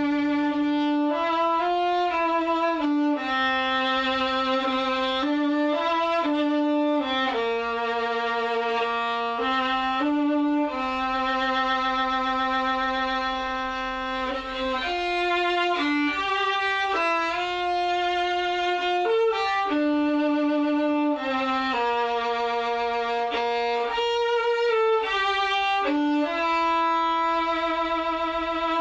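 Film score: a solo violin playing a slow melody of long held notes, some with vibrato, moving in steps up and down.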